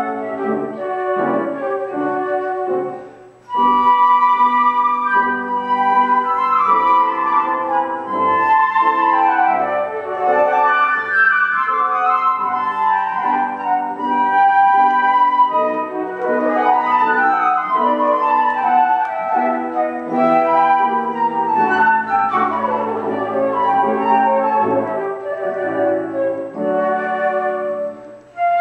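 Two flutes playing a duet with grand piano accompaniment. The music pauses briefly about three seconds in and again near the end.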